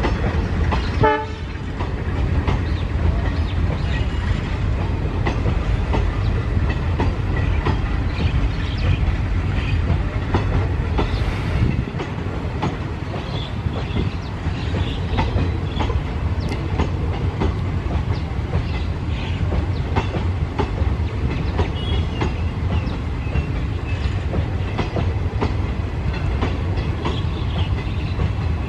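Passenger coaches rolling past, wheels clacking over the rail joints over a steady low rumble. A brief, sharp sound stands out about a second in.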